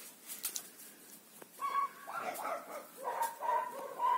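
A dog whining in a string of short, high-pitched cries that start about a second and a half in and repeat every half second or so. It is worked up over a cat it is being told to leave alone.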